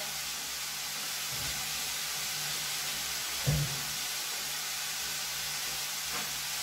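Sliced mushrooms sizzling steadily in a frying pan, left to brown without stirring. A single dull thump about three and a half seconds in.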